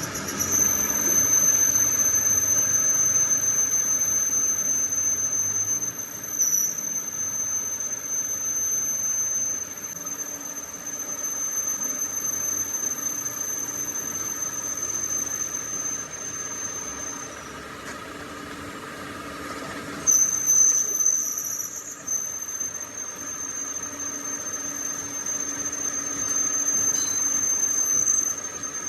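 A metal-cutting tool squealing against a steel workpiece during machining: a steady high-pitched whistle. It stops for a couple of seconds past the middle, then comes back louder and wavering before settling again.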